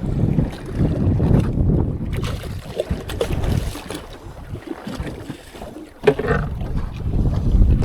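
Strong wind buffeting the microphone on a small boat at sea: a low, gusty rumble that swells and eases, dropping away for a moment before a short sharp knock about six seconds in.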